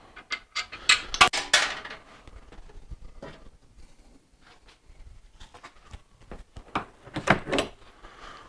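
Hand tools and small metal fasteners clinking and clattering while Allen-head bolts and nuts are fitted to a motorcycle's front fender, in two busy clusters of sharp clicks about a second in and again around seven seconds, with lighter ticks between.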